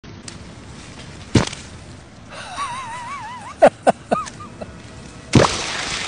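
Himalayan balsam seed pods bursting open: about five sharp pops that each drop quickly in pitch, one early, then three in quick succession, then one more near the end. A wavering, whistle-like call runs briefly between them.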